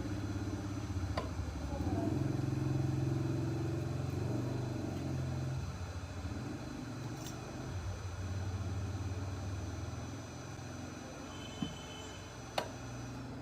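An engine starting up suddenly and then running steadily, a little louder for a couple of seconds before settling. Two sharp clicks come near the end.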